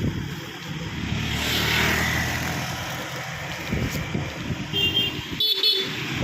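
Motor vehicles running by the road, one swelling past early on, and a short horn toot about five seconds in.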